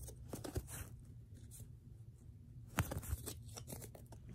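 Magic: The Gathering cards being flipped through by hand: soft clicks and slides of card stock as each card is moved to the back of the stack, with a quicker run of sharper clicks about three seconds in.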